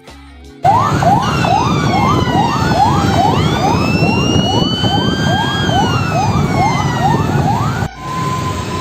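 Emergency vehicle sirens: a fast yelp sweeping up about twice a second over a slower wailing tone that rises and falls, with a low rumble underneath. Near the end it switches to a steady tone that steps down, the start of a two-tone hi-lo siren.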